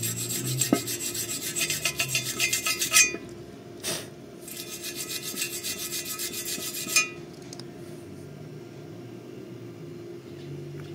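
Hand-held steel wire brush scrubbing a fresh weld bead on steel in rapid back-and-forth strokes, cleaning the weld. Two spells of scrubbing of about three seconds each, with a single sharp knock between them; the brushing stops about seven seconds in.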